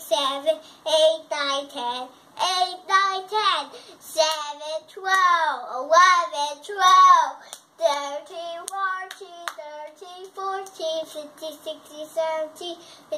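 A young boy singing a song on his own, unaccompanied, his voice gliding up and down in pitch.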